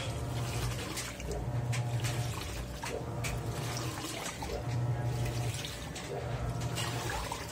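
Panasonic NA-F160B5 16 kg top-load washing machine agitating a full load of T-shirts: the motor hums in short pulses that switch on and off about every second and a half, with water sloshing and clothes churning in the drum.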